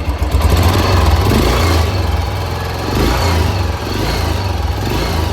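Royal Enfield Bullet single-cylinder motorcycle engine running just after an engine rebuild, the throttle opened briefly twice. The rebuild was done to cure a noise inside the engine.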